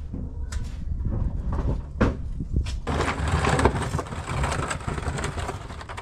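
Mechanic's creeper rolling and scraping across the ground as a person slides in under the car, with scattered knocks and clicks, loudest about three to five and a half seconds in.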